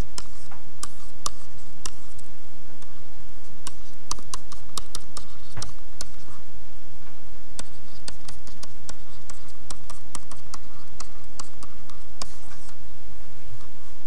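Irregular light clicks and taps, sometimes several in quick succession, over a steady low room hiss.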